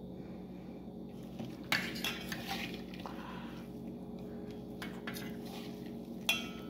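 A metal spoon clinking and scraping against stainless-steel bowls as cornflour is scooped out and added to a bowl of chicken pieces, with a few sharp clinks about two seconds in and one near the end. A steady low hum runs underneath.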